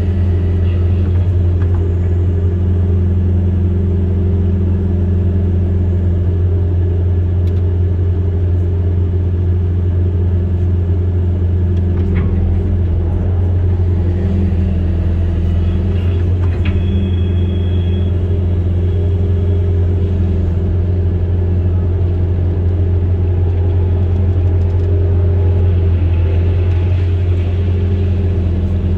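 Diesel engine of an amphibious excavator running steadily, a constant low hum with no change in speed.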